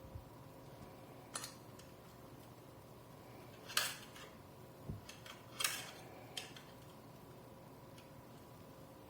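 Light metallic clicks and clinks of small laptop parts and tools being handled: about five short ones, the two loudest near the middle.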